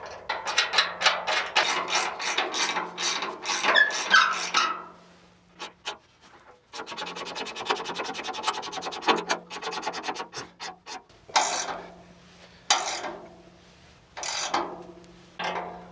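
Ratchet wrench clicking as it winds a nut along a 12 mm threaded bar, drawing a chassis bush into the Land Rover's chassis eye. Runs of clicking strokes, a fast even rattle of clicks in the middle, then a few single strokes near the end as the bush seats.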